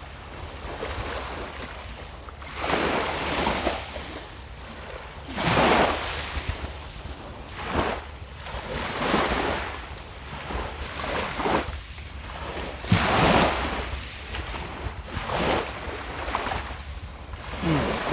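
Small waves breaking and washing up the shore, a soft swell of surf about every two seconds, over a low steady wind rumble on the microphone.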